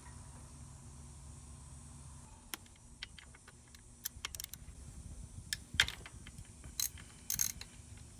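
3/8-inch drive ratchet with an extension and 6 mm Allen socket clicking in irregular runs as it loosens the drain bolt on a scooter's final-drive gearbox, starting a couple of seconds in.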